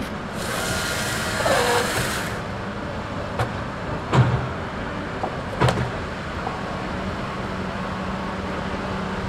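Tigercat log loader's diesel engine running steadily while its grapple handles tree-length logs. A hiss with a short falling squeal comes in the first two seconds, then three sharp knocks of wood on wood around the middle.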